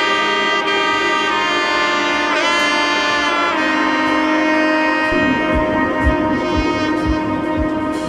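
Background music with a saxophone or brass lead holding long notes with bends; about five seconds in a low beat comes in at about two thumps a second.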